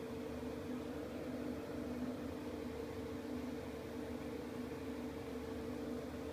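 Steady machine hum with an even hiss, two low tones held unchanged throughout.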